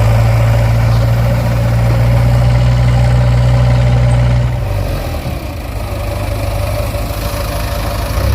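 Heavy diesel engine running steadily with a deep hum. About five seconds in, the hum eases off and the engine runs on more quietly.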